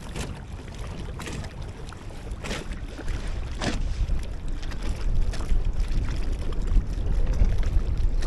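Wind buffeting the microphone, a gusting low rumble that grows louder after about halfway, with small waves lapping and splashing a few times.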